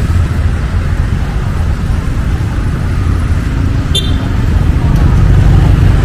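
Road traffic: motor vehicle engines running steadily close by, with a brief high-pitched chirp about four seconds in.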